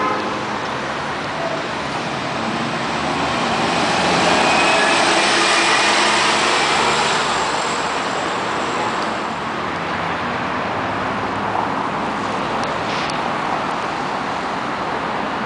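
Articulated Marcopolo Gran Viale bus driving past, its engine and tyre noise growing to a peak about five seconds in, then fading as it pulls away, over steady road traffic.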